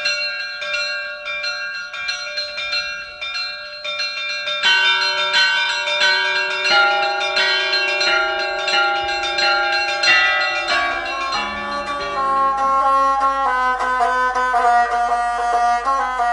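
A rapid peal of bells, struck several times a second, each stroke ringing on. After about four and a half seconds more and lower notes join, and deeper notes come in near the end.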